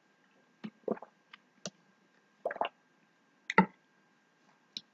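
Bare feet stepping and shifting on a yoga mat: a scattering of about eight short, soft squishes and taps, the loudest near the middle and about three and a half seconds in.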